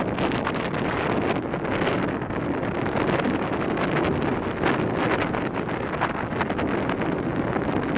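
Wind buffeting the camera microphone: a loud, steady rush with constant flickering buffets.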